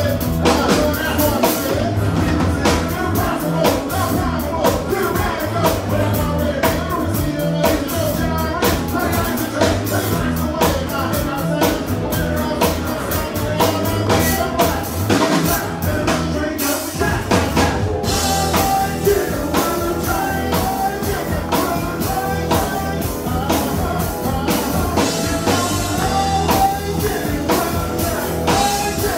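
Live country-rap band performance: lead vocals over a steady drum-kit beat with guitars.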